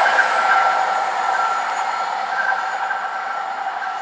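Freightliner Class 70 diesel locomotive running away down the line, its engine noise with a steady high whine over it, fading gradually as it recedes.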